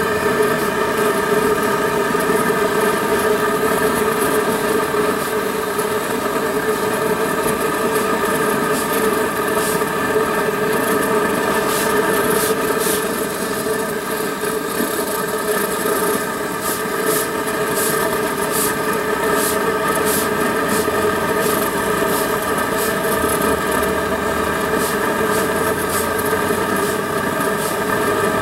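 A machine running with a steady, unchanging drone, with faint short ticks through the middle stretch.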